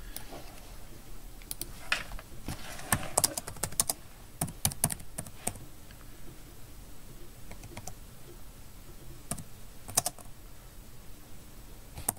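Typing on a computer keyboard: short runs of keystrokes with pauses between, as a filename is typed.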